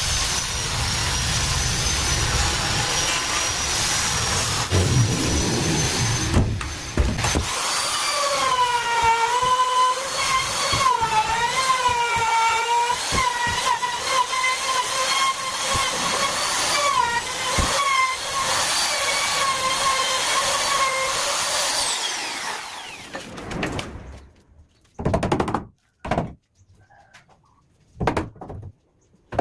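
Handheld trimmer router running loud. Its high whine dips and wavers in pitch as the bit is loaded cutting wood, then it winds down about three-quarters of the way through. A few short knocks follow near the end.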